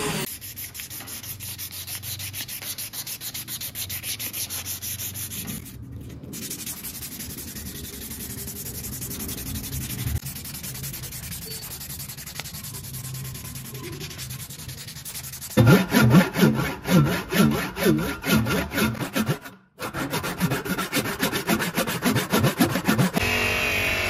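Sanding with rapid back-and-forth rubbing strokes. The strokes are lighter at first, then louder at about three to four a second from about two-thirds through, with brief stops along the way.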